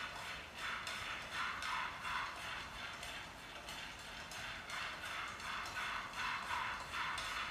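Spatula stirring and scraping food in a frying pan, in strokes about twice a second over a steady hiss.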